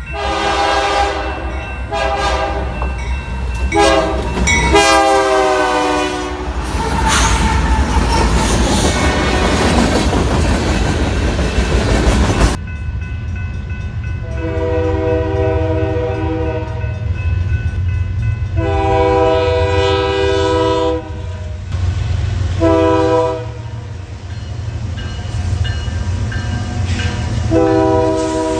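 Nathan Airchime K3LA five-chime locomotive horn on a BNSF Dash 9-44CW sounds four blasts, the last the longest, then the train passes with a heavy rumble and clickety-clack of wheels. About halfway, after a cut, a Nathan K3HR horn on a BNSF ET44C4 sounds the grade-crossing pattern: long, long, short, and a final long blast starting near the end.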